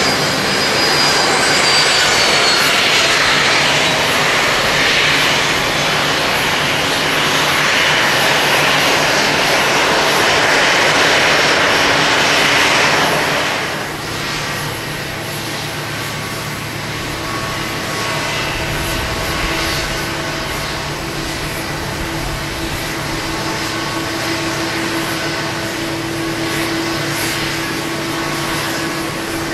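Boeing 777-300 airliner's twin jet engines running at ground idle during pushback and taxi: a loud rushing whine. About 14 s in, the sound drops suddenly to a quieter, steadier hum with several steady tones in it.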